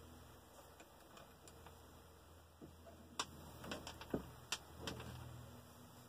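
Faint metallic clicks and knocks from a single-stage reloading press as a cartridge is seated in the shell holder and the ram is raised into the bullet-puller die, with a few sharp clicks between about three and five seconds in.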